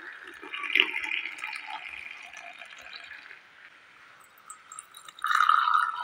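Milky coffee poured in a long stream from a height into ceramic mugs, splashing and frothing. The pour thins out around the middle and picks up louder again about five seconds in.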